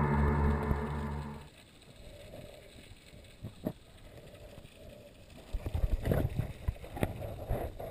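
A held, steady musical tone that cuts off about a second and a half in, then the muffled sound of water around a camera held underwater, with a couple of clicks and, from past the middle, irregular sloshing and splashing as the camera comes up to the surface.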